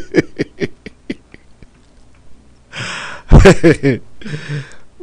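A man laughing: a quick run of pitched ha-ha pulses that fade out over the first second and a half, then a second, breathier burst of laughter about three seconds in, ending in a sharp breath.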